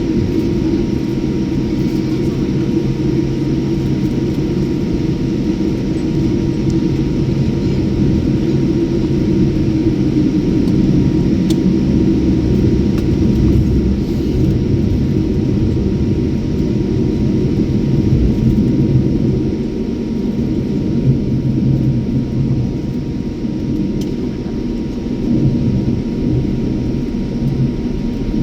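Jet airliner engines running, a steady low rumble with a faint constant whine over it.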